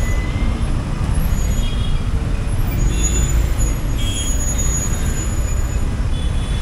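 Suzuki Gixxer SF motorcycle riding at low speed: a steady low rumble of its single-cylinder engine and road noise.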